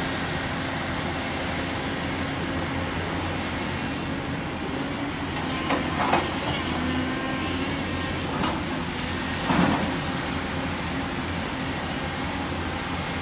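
Volvo EC350 crawler excavator's diesel engine running steadily under working load. Short bursts of clatter about six seconds in and again near ten seconds, as the bucket drops dirt and rocks into the steel bed of a dump truck.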